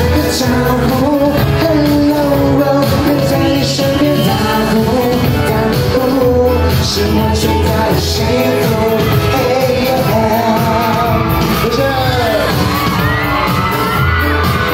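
Live pop band playing in a large hall while the singer holds long, wordless sung notes; from about three-quarters of the way in, high swooping cries come in on top of the music.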